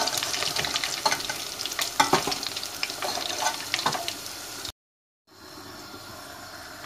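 Breaded chicken nuggets sizzling and crackling in hot sunflower oil while a slotted steel skimmer lifts them out, with sharp pops and clicks. The sound drops out for about half a second a little after halfway, then a steadier, quieter sizzle carries on.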